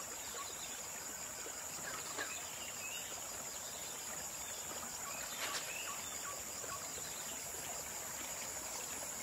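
Steady high-pitched insect drone of the rainforest, with a few short, faint bird chirps.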